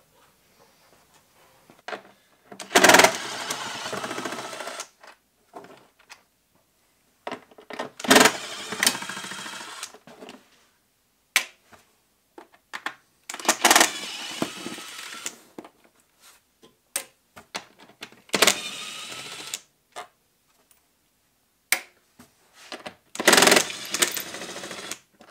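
A handheld cordless power tool running five times for about two seconds each, each run starting sharply, backing out the bolts on a car's engine cover; light clicks between the runs.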